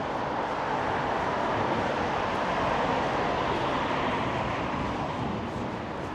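A road vehicle passing, its tyre and engine noise swelling to a peak about three seconds in and then fading.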